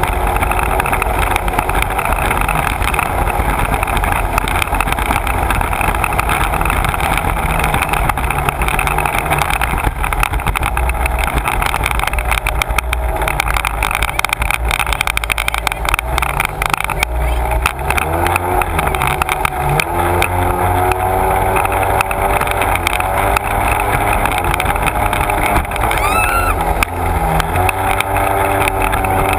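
Sea-Doo personal watercraft engine running at speed, with rushing water and spray against the hull close to the camera. In the second half the pitch rises and falls repeatedly as the throttle and turns change.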